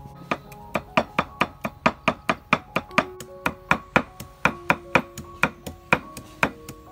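Knife chopping red chilies on a round wooden chopping board: a steady run of quick strokes, about four a second, starting just after the beginning and stopping near the end. Background music with held notes plays underneath.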